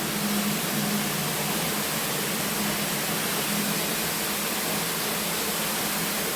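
Steady, even hiss with a low, constant hum underneath, unchanging throughout.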